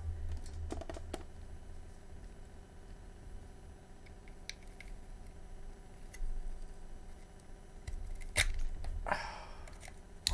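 A few faint, sharp clicks and taps from handling the desoldering gun and circuit board, over a low hum that fades after the first couple of seconds and comes back briefly near the end.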